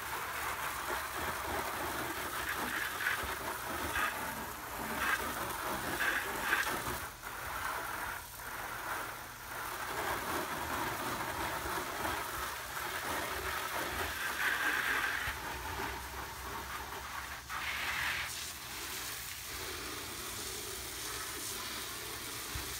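Garden hose spray nozzle on its jet setting, a steady stream of water spraying and splashing against the aluminum side of a trailer, rinsing off cleaner and grime; the spray briefly falters a few times.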